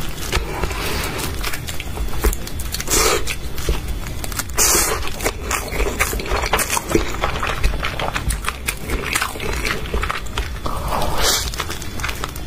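Crunching and chewing as a person bites into and eats a crisp roasted-seaweed wrap topped with salmon. There are a few louder crunching bites in among steady chewing.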